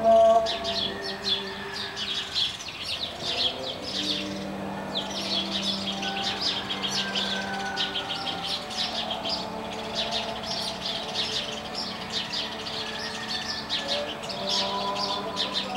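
Many small birds chirping continuously in a dense, rapid chatter. Faint held low tones sit underneath and shift in pitch every second or two.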